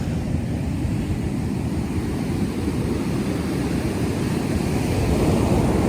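Steady low rumble of wind on the microphone mixed with surf washing on the beach, swelling a little near the end.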